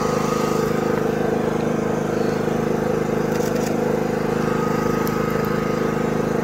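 A steady, low mechanical drone holding one even pitch, with no rise or fall.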